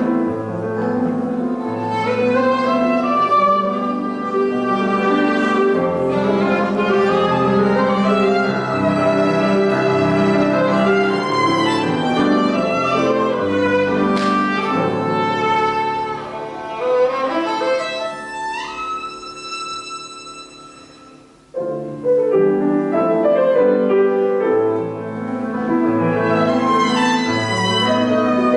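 Solo violin with piano accompaniment playing a slow classical piece. About two-thirds of the way through, a single high note glides up and is held, fading away, before the full music comes back in abruptly.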